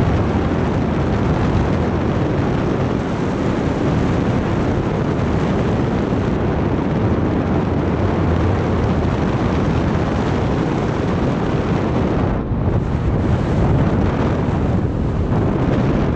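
Steady rush of airflow buffeting the microphone of a camera worn by a paraglider pilot in flight, easing briefly about twelve seconds in.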